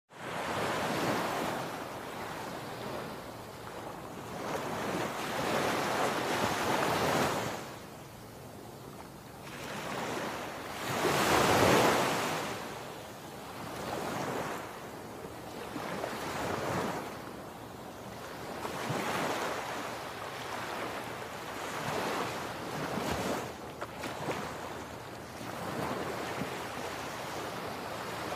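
Ocean surf breaking and washing up a sandy shore in repeated swells every few seconds, the loudest one about a third of the way in, with some wind.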